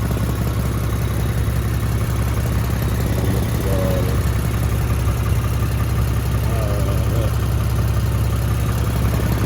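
A car engine idling steadily, a constant low hum.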